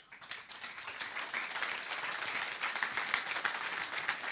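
Audience applauding, many hands clapping at once; the applause swells in the first half second and then holds steady.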